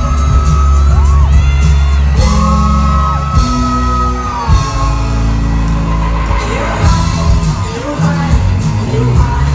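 Live band music played loud through a venue PA, with heavy bass, singing and yells, picked up on a phone microphone in the crowd.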